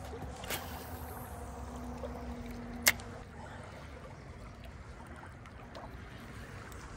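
Shallow river water trickling and lapping, with one sharp click about three seconds in.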